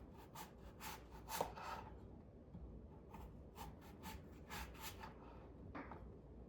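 Knife cutting through an apple onto a cutting board: faint, irregular short taps and slicing noises, with a pause about two seconds in.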